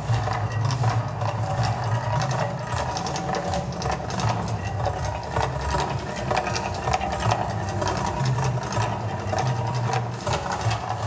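Casino volcano attraction erupting, its flames and fire jets going off over the lagoon: a steady low rumble under dense, rapid crackling that runs on without a break.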